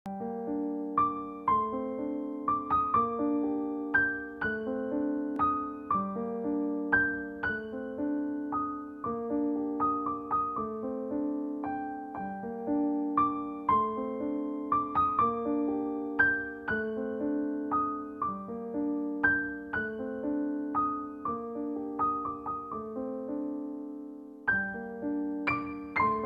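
Solo piano music: single notes struck over held lower notes, in a gentle phrase that repeats every few seconds.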